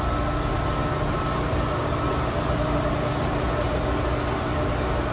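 Steady hum of running machinery: a low rumble with a few faint held tones.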